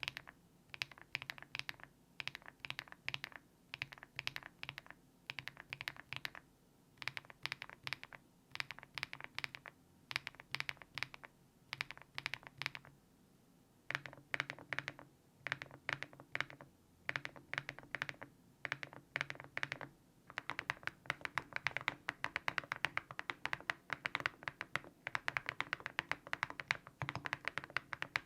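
Typing on a mechanical keyboard fitted with Cerakey ceramic keycaps: quick runs of keystrokes with short pauses between them, turning into faster continuous typing about two-thirds of the way through.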